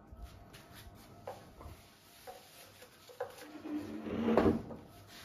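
Light clicks of hair-sectioning clips and tools being handled, ending in a louder knock about four seconds in.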